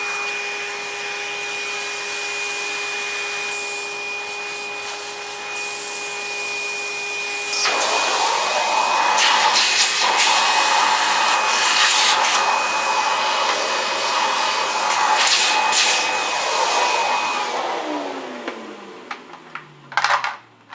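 An electric motor running with a steady hum. About eight seconds in it turns into a louder, rough rubbing or grinding noise. It is switched off near the end and winds down, its pitch falling over the last few seconds.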